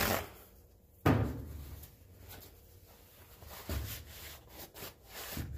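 A sharp knock about a second in as the aluminium cylinder head is moved on the bench, then a paper shop towel rubbing over the wet lapping sheet, with a couple of softer thumps.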